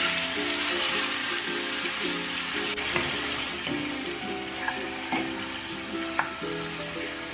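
Chicken breast pieces sizzling in hot oil in a skillet as they are stirred, with a few sharp knocks of a wooden spoon against the pan. Background music plays underneath.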